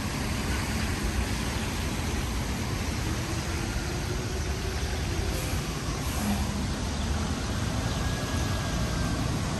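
Steady hiss of rain with city traffic on wet streets, vehicles running past in a low rumble.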